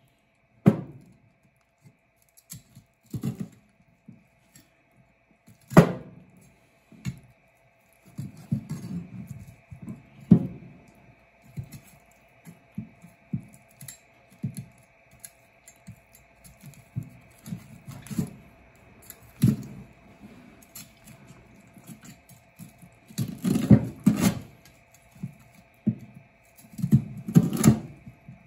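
Chinese cleaver chopping through a yellowtail head on a plastic cutting board: irregular sharp chops and knocks with quieter handling sounds between them, several heavy chops in quick succession near the end.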